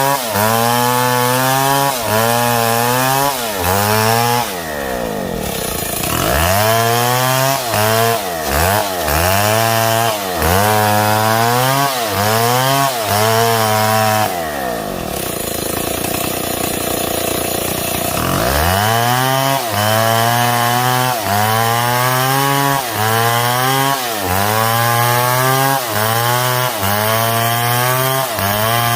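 STIHL MS661 two-stroke chainsaw cutting wood. Its pitch rises and sags in a steady repeating rhythm about every second as the load comes and goes, with two stretches where the speed drops and wavers before it picks up again.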